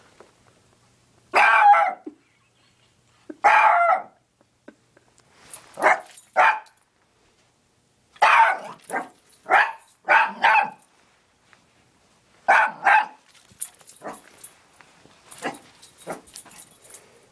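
Small dog barking in short bursts: two longer barks a couple of seconds apart, then quicker barks in pairs and a rapid run of four or five, with two more after a short pause. Fainter scattered clicks and rustles follow near the end.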